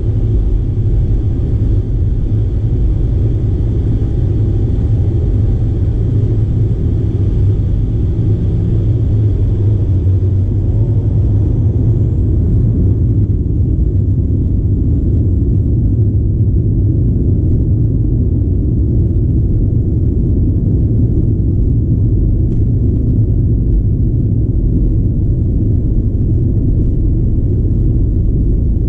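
Steady low rumble inside the cabin of a BAe Avro RJ85, its four Honeywell LF507 turbofans running at taxi power. A faint higher engine whine sits over it and fades out about twelve seconds in.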